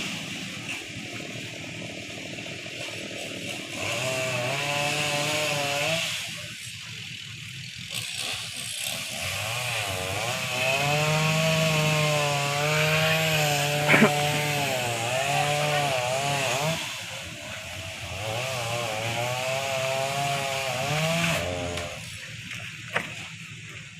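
Two-stroke chainsaw cutting into tree wood, its engine revving in several long bursts with the pitch rising and dipping as the chain bites. A single sharp knock stands out about halfway through.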